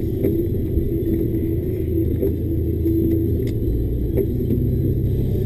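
Loaded timber lorry's diesel engine and drivetrain running steadily, a low rumble heard inside the cab, with a few faint knocks and rattles from the cab as it drives over the rough forest road.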